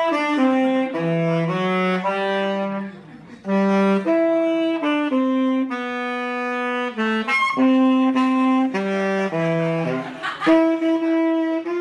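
Solo tenor saxophone playing a slow melody of long held notes, with a short break about three seconds in and one long sustained note in the middle.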